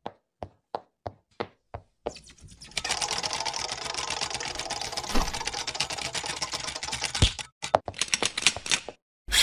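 Cartoon sound effects for an animated intro: a run of six light, evenly spaced ticks in the first two seconds, then a long, fast, dense clicking clatter, ending in a few separate clacks.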